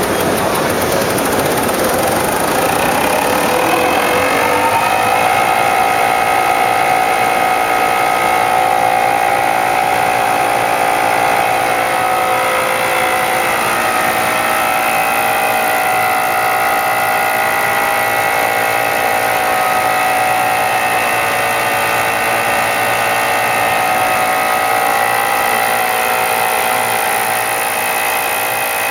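Servo-driven Flexor 380 2C+ label die-cutting and rewinding machine running up to speed. Its steady whine of several tones rises in pitch over the first four or five seconds, then holds level as the machine runs at production speed.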